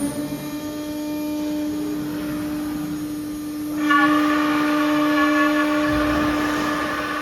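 CNC nesting router spindle running at a steady high-pitched whine, just after spinning up to speed. About four seconds in it grows louder and harsher, with more high overtones.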